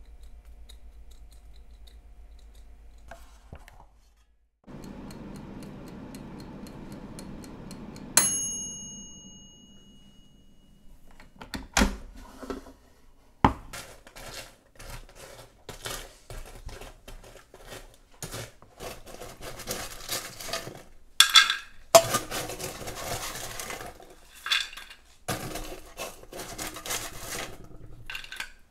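Kitchenware and utensils handled: one sharp clink about eight seconds in that rings on briefly, then a run of irregular knocks, taps and clatter.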